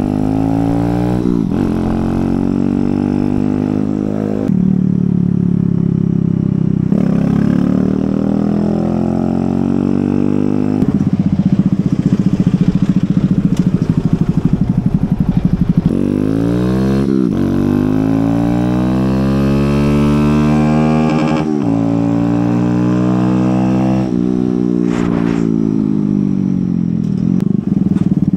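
Kawasaki Z125 Pro's single-cylinder four-stroke engine under way, its pitch climbing and then dropping back several times as the rider works up and down through the gears.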